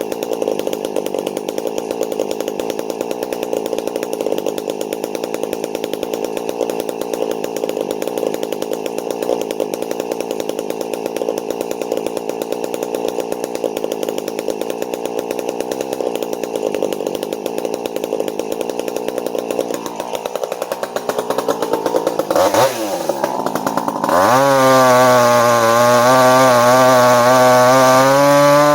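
Two-stroke chainsaw cutting through a red elm trunk under load for about twenty seconds. It then eases off, revs up and down briefly, and runs louder at high throttle out of the cut for the last few seconds before dropping back.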